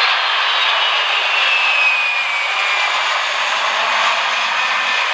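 Jet engines of a KC-135E Stratotanker and two F-16 fighters flying past in formation: a loud, steady rushing roar with a high engine whine that falls slowly in pitch over the first few seconds as they pass.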